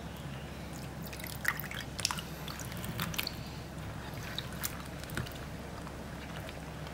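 Scattered light clicks and taps of kitchen work over a low steady hum, with a few sharper clicks in the first half.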